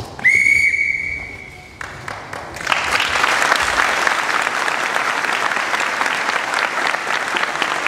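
One long, steady whistle blast lasting about a second and a half, then, about three seconds in, an audience starts clapping and keeps up steady applause.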